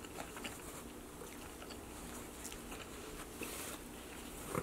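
Close-miked chewing of a chicken wing, with faint mouth clicks, and a brief rustle of a paper napkin about three and a half seconds in.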